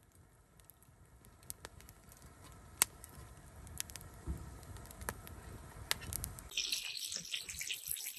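Wood campfire crackling, with scattered sharp pops over a faint low rumble. About six and a half seconds in it changes abruptly to a louder, dense crackling hiss.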